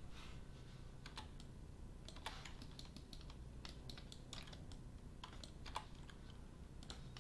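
Faint, irregular clicking of computer keyboard keys and a mouse, over a low steady hum.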